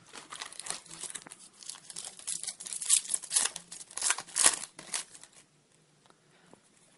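Foil wrapper of a trading-card pack being torn open and crinkled: a dense run of sharp crackles for about five and a half seconds, then it stops.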